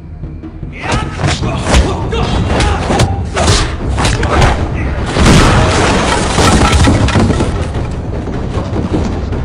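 Martial-arts film fight soundtrack: about a second in, a loud, dense run of blows and heavy thuds begins, mixed with shouting voices and some film score.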